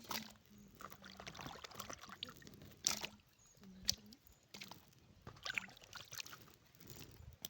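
Water being handled, with sloshing and pouring, and a few sharp knocks about three and four seconds in.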